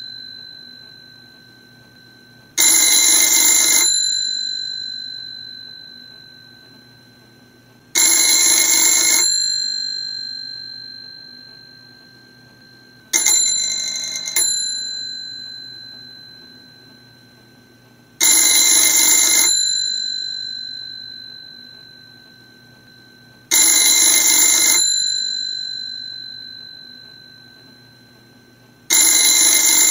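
Mechanikai Művek CB24 rotary-dial telephone's bell ringing: six bursts of rapid clapper strikes on its two metal gongs, each about a second long and about five seconds apart. The gongs ring on and fade slowly between bursts. One burst about halfway through is shorter and broken.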